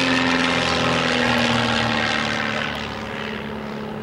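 Propeller engine of an aerobatic biplane, a steady drone whose pitch sinks slightly, growing a little quieter near the end.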